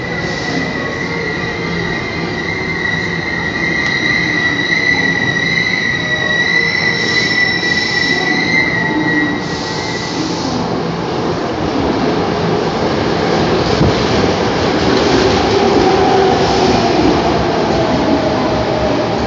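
Electric commuter train pulling into a station on curved track. For the first ten seconds a steady high wheel squeal sounds; then the rumble and clatter of the cars grows louder as they run in alongside the platform.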